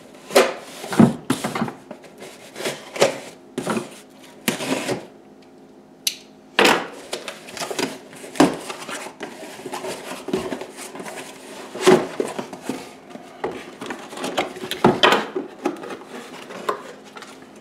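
Cardboard box and its packing being handled and opened to take out a new subwoofer: scattered knocks, taps, scrapes and rustles on a countertop, with a brief lull about five seconds in.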